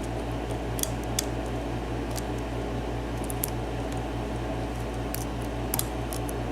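Faint, sharp metallic clicks, scattered about a second apart, as a lock pick works the pin stacks of a 7-pin Dorma cylinder lock under light tension, with pins setting, over a steady low hum.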